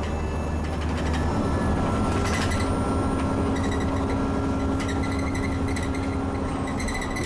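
Inside an Alexander Dennis Enviro 400 double-decker bus: the diesel engine running, its note lifting a little about a second in, with a steady whine over it from a turbo that wheezes badly. Interior fittings rattle now and then.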